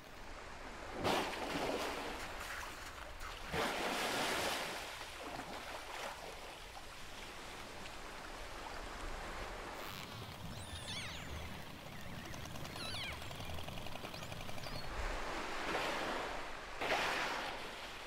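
Killer whales (orcas) breathing at the surface of an ice lead: several loud rushing blows, one about a second in, one around four seconds in and two near the end. Between them come high gliding whistles and a fast pulsed call.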